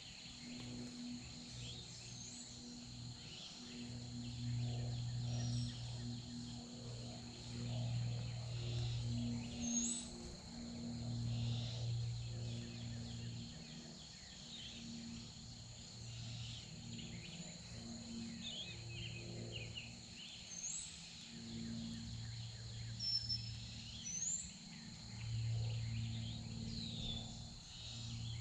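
Woodland ambience: a steady high insect drone with scattered short bird chirps, over a low hum that swells and fades every few seconds.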